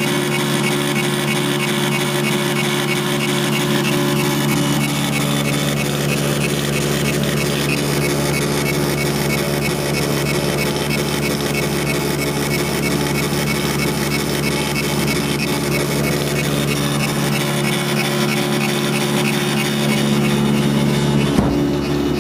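Tally T6140 dot matrix printer printing a run of labels with its cover off, a little louder than with the cover on. The print head's rapid pin-strike chatter runs on without a break over a steady low hum.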